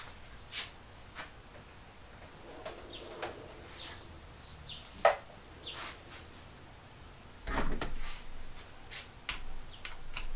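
Scattered metal clicks and clanks of hand tools on a transmission case as a damaged fastener is worked on, with a sharp click about halfway through and a short cluster of knocks a couple of seconds later.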